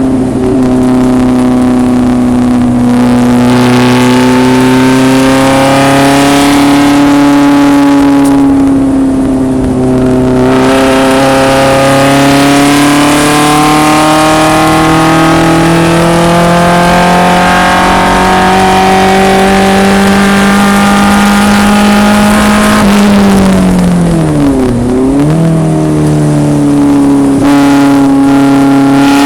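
1974 BMW 2002 racecar's four-cylinder engine running hard at the track, its pitch climbing slowly through long pulls. About 24 seconds in the revs fall sharply and jump back up, as on braking and a downshift, then climb again.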